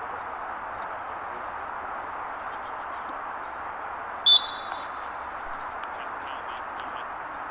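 An umpire's whistle gives one short blast about four seconds in, the signal that starts a field hockey shoot-out attempt. Steady background noise runs underneath.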